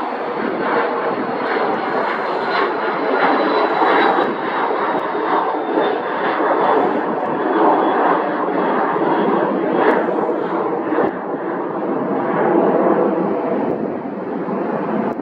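Jet airliner engines running loud and steady, with a thin high whine that slowly falls in pitch.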